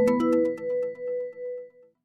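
Synthesized phone ringtone finishing: its quick melody and beat stop about half a second in, leaving one held note that pulses and fades away in a few repeats before cutting to silence near the end.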